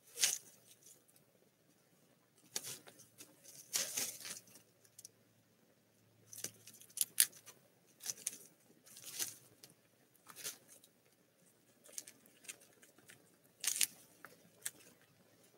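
Barred owl owlets shifting and scratching about in the wood shavings of their nest box: about a dozen short, dry rustles and scratches at irregular intervals.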